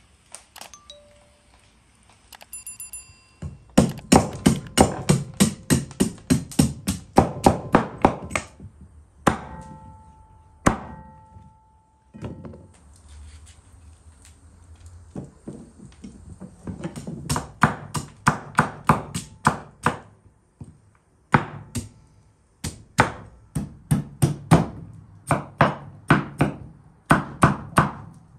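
Kitchen knife chopping raw pumpkin on a wooden cutting board: quick runs of blade strikes, about five a second, broken by short pauses.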